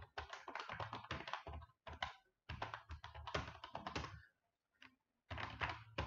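Typing on a computer keyboard, entering a terminal command: three quick flurries of keystrokes with short pauses between them.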